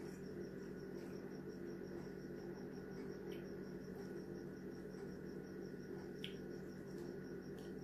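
Steady low hum with a faint, even high-pitched pulsing about five times a second, and a few faint soft clicks from fingers picking food out of a glass dish.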